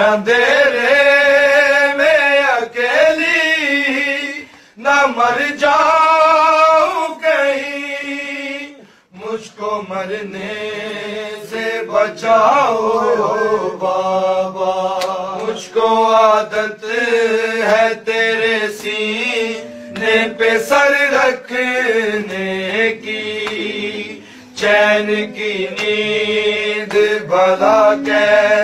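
A solo voice chanting a mournful Urdu lament (noha) unaccompanied in a slow, drawn-out melody. From about nine seconds in, a steady hummed drone is held beneath it.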